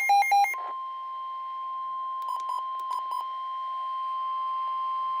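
Emergency alert tones from a weather radio broadcast. Rapid electronic beeping stops about half a second in and gives way to the steady 1050 Hz warning alarm tone of NOAA Weather Radio, with two pairs of short beeps over it about two to three seconds in.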